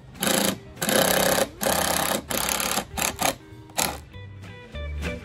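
A power driver running in about seven short bursts, like screws being driven into wood. From about four seconds in, guitar background music takes over.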